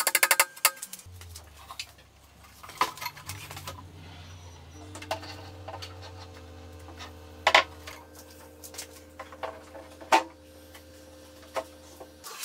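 A few quick hammer taps on a particleboard furniture panel right at the start, then soft background music of low held notes. Over it, a handful of sharp knocks as the chest's particleboard top panel is handled and set onto the frame, the loudest about halfway through.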